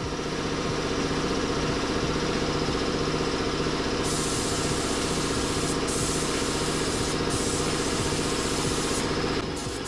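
Air compressor running steadily, with the hiss of a Harbor Freight gravity-feed spray gun atomising single-stage urethane paint onto a rocker panel from about four seconds in. The hiss breaks off briefly twice as the trigger is let go, and stops shortly before the end.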